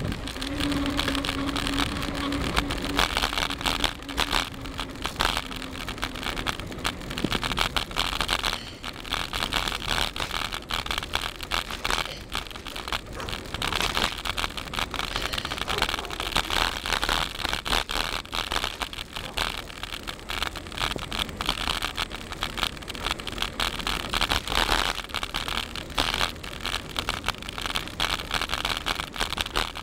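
Wind rushing over the microphone on a moving bicycle, mixed with tyre and road noise: an even, fluttering rush. A faint steady hum, dropping slightly in pitch, runs under it for the first several seconds.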